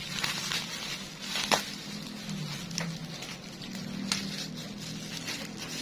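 Bubble wrap being unwrapped by hand: plastic rustling and crinkling, with a few sharp crackles, the loudest about a second and a half in.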